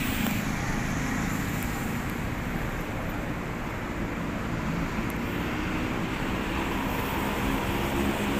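Steady city road traffic noise: a continuous low rumble of passing cars.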